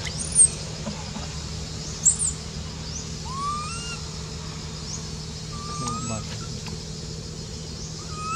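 Animal calls: two short, sharp high chirps in the first couple of seconds, then a few thin whistled calls that rise and fall, spaced a few seconds apart, over a steady low hum.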